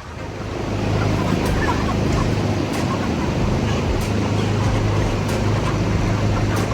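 A motor running steadily: a dense, noisy rush over a low hum that swells in over the first second and then holds level.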